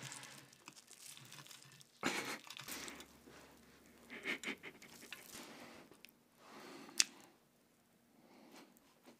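Crisp crumb coating of a deep-fried cutlet sandwich crackling in short bursts as gloved hands grip, lift and squeeze it, with a sharp click about seven seconds in.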